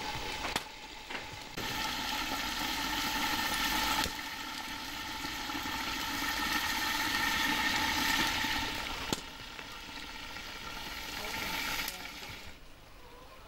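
A covered pan of chicken and potatoes sizzling over an open wood fire: a steady hiss that changes abruptly a few times and turns fainter near the end.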